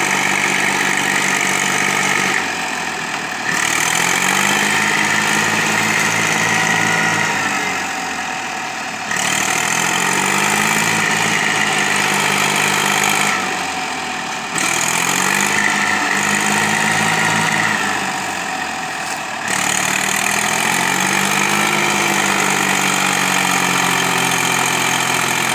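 Ursus farm tractor's diesel engine revving hard about four times under heavy load, its pitch climbing during each push and falling back in between. The engine is labouring to pull the mud-bogged tractor out of deep ruts.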